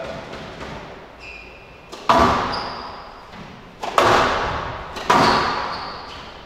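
Squash ball being struck in a rally: three sharp smacks a second or two apart, each ringing out in the enclosed court's echo. Short high squeaks of shoes on the court floor come between them.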